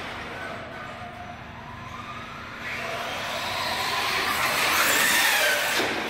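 Traxxas Slash 4x4 RC truck accelerating on concrete: its electric motor whine rises in pitch over several seconds along with tyre noise, loudest about five seconds in, then drops off sharply near the end as the truck passes.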